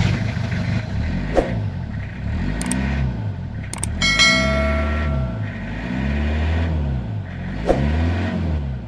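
Car engine revving up and down again and again, heard close to the open end of its rusty tailpipe. A short bright chime sounds about four seconds in, and two sharp clicks come through the engine noise.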